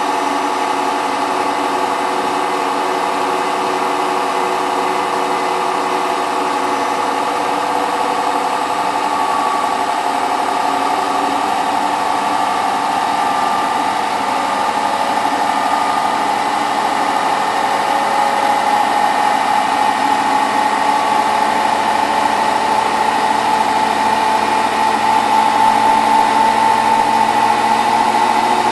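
Hotpoint WT960 washing machine in its high-speed final spin: the motor and drum run with a steady hum and whine, growing a little louder in the last ten seconds or so.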